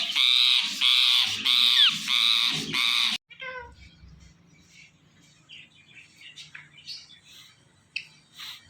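Ringneck parrot giving a rapid string of about six loud, harsh screeching squawks, which cut off abruptly about three seconds in. After that there are only faint chirps and clicks.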